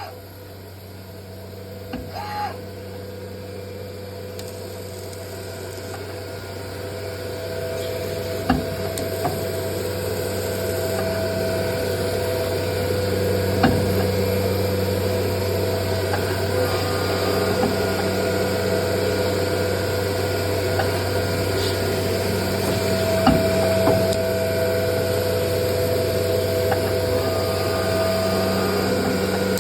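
Biesse CNC router running as it cuts cardboard: a steady machine hum with several held tones, building up over the first dozen seconds and then holding steady. There are a few sharp clicks and a short pitched sound about two seconds in.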